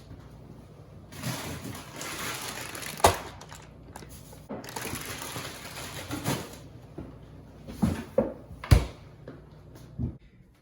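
Rustling, crinkling handling noise in two stretches, with several sharp knocks; the loudest knock comes near the end.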